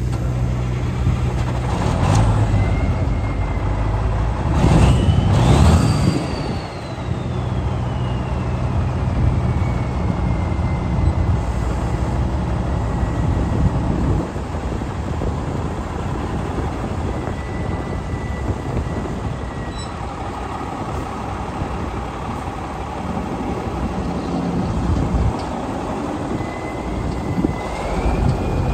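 Diesel engine of a 1995 Volvo truck running at idle, revved once about five seconds in. A high whistle rises with the rev and slowly falls away over several seconds, and a second whistle rises near the end.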